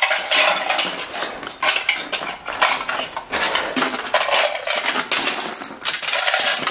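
Small hard plastic toy pieces clattering, with many quick clicks and rattles: Lego bricks knocking about in a plastic toy dumpster as it is handled.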